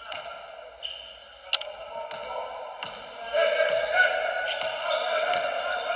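A few sharp basketball bounces on the court floor during a stoppage in play, over a steady murmur of voices in the gym hall that grows louder about three seconds in.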